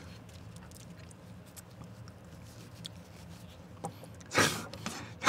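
Faint mouth clicks and lip smacks from a person tasting sour lemon, then one loud breath about four seconds in.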